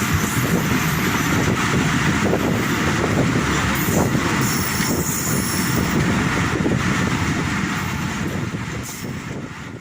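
Subak Raftar railcar running through the station at speed without stopping, its wheels rumbling on the rails. The sound holds steady, then fades away in the last couple of seconds as it moves off.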